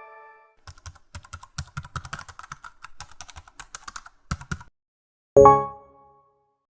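Computer keyboard typing sound effect: a quick, irregular run of key clicks lasting about four seconds. About a second after the typing stops comes a single short ringing strike that dies away quickly.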